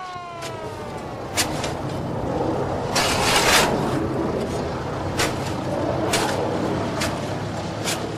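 A pick striking hard, dry earth again and again, about once a second, over a steady low hum.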